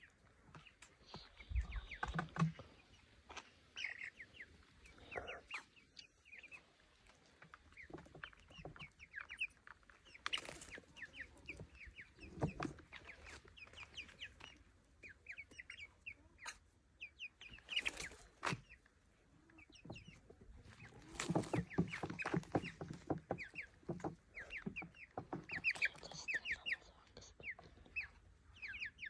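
Chicken clucking quietly in short runs of quick clucks, with a louder stretch of lower clucking about two-thirds of the way in.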